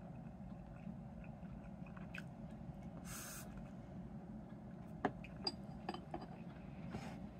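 A steady low hum under quiet eating from a ceramic rice bowl with chopsticks, with a short hiss about three seconds in. Around five to six seconds in come a few sharp clicks and knocks, the first the loudest, as the bowl and chopsticks are set down on the table.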